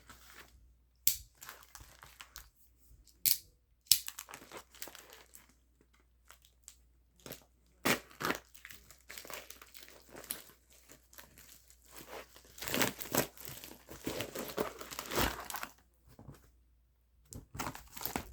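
A package being opened by hand: intermittent crinkling, rustling and tearing of wrapping, with scattered clicks. The handling is sparse at first and grows busier about halfway through.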